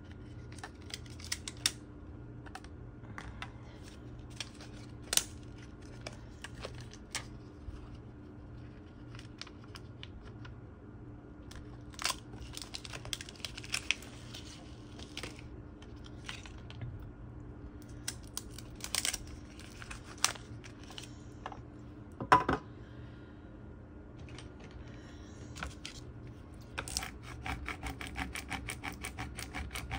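Vinyl and its paper backing sheets crinkling and rustling as they are handled and peeled, with scattered light clicks and one sharp knock a little past the middle. Near the end, a plastic squeegee starts rubbing quickly back and forth over transfer tape, burnishing it onto the cut vinyl.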